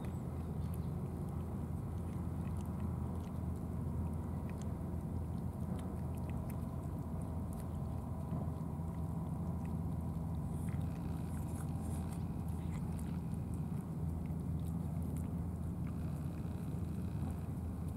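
Cats chewing food, with small wet clicks and smacks, over a steady low rumble.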